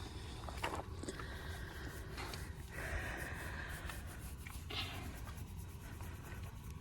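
Scratchy rubbing and rustling, with a few short louder scrapes and a longer one about three seconds in, over a steady low rumble.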